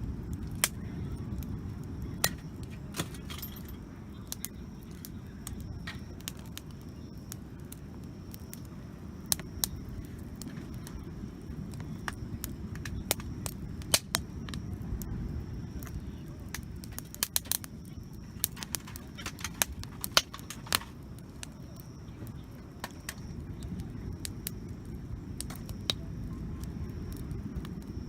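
Wood campfire crackling, with irregular sharp pops and snaps that bunch up past the middle, over a steady low rumble.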